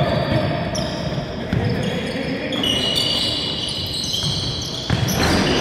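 Basketball bouncing on a wooden sports-hall court and players' feet on the floor during play.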